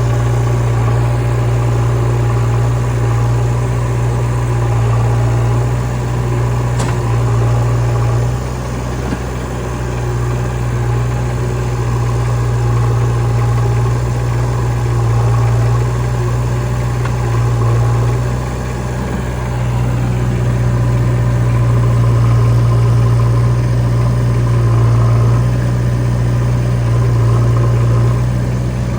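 Heavy diesel engine running steadily at low revs with a deep, continuous hum that swells and eases slightly now and then.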